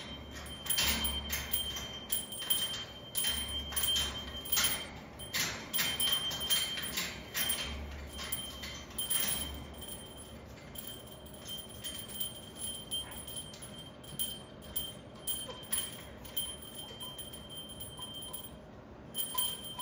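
A small bell on a parrot's hanging cage toy ringing over and over as the parrot swings on it and knocks it about. The strikes come thick and fast for the first half, then thin out to scattered rings.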